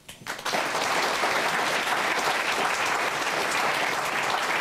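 A studio audience applauding: a few first claps, then full clapping within half a second that stays steady.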